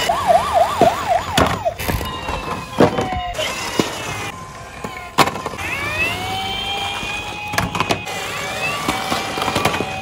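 Toy police car sirens. One wails quickly up and down at the start, and another rises and holds from about six seconds in. Toy cars rolling down a wooden board, with sharp clacks as they hit each other and the stacked blocks.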